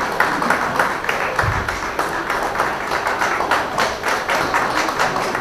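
Audience applauding: a dense, steady run of many hands clapping, with one low thump about one and a half seconds in.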